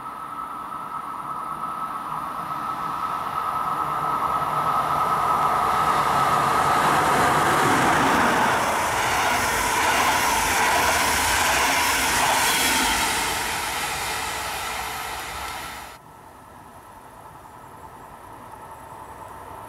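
DB Class 111 electric locomotive and its double-deck coaches approaching and passing at speed: a steady high tone on the approach, growing into a loud rushing rumble of wheels on rail as the coaches go by, then fading. About three-quarters of the way in it cuts off suddenly to the fainter low rumble of a diesel multiple unit approaching from afar.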